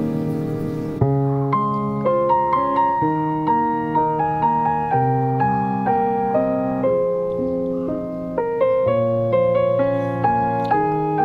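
Background piano music: a gentle melody of struck notes over a bass line, about two notes a second.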